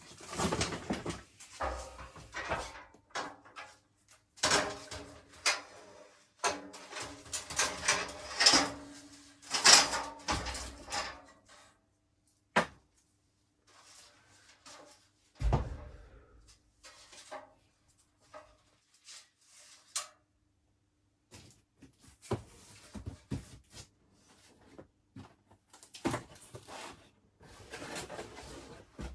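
Household items being shifted around on storage shelves: irregular knocks, clatter and rustling, with one heavy thump about halfway through.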